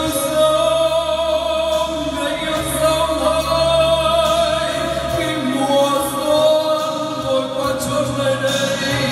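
Vietnamese karaoke song: a backing track with a man singing held notes into a microphone, played through the room's loudspeakers.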